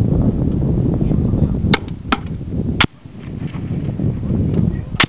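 Four sharp cracks of gunfire, three close together past the middle and one near the end, over heavy wind buffeting on the microphone.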